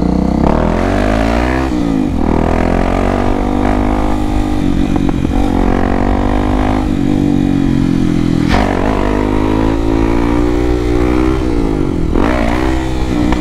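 Honda XRE 300's single-cylinder engine through an aftermarket Dore exhaust, ridden hard under throttle: the revs climb and fall back again several times.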